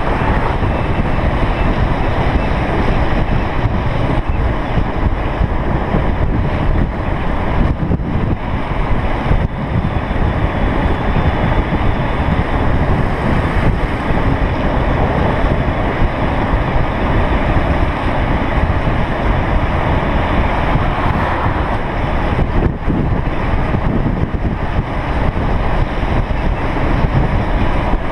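Wind rushing over the camera microphone at downhill speed, a loud steady roar with a low road rumble underneath.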